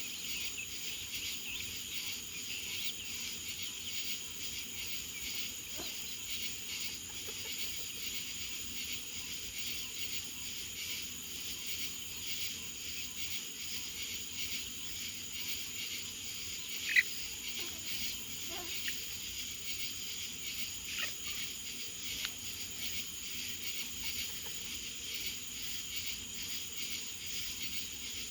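A steady chorus of crickets and other insects, an even high trilling. About two-thirds of the way through a single short, sharp chirp stands out as the loudest sound, followed by a few fainter short calls.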